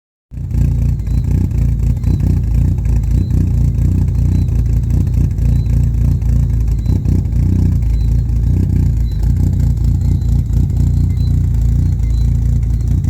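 Rebuilt Mitsubishi 4G93 MIVEC inline-four engine running loud and steady after its rebuild, cutting in abruptly just after the start.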